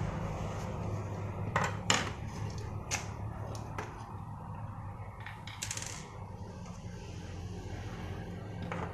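Hard plastic hairdryer casing and parts clicking and clacking as they are handled and set down: a few sharp knocks in the first half, the loudest about two seconds in, over a steady low hum.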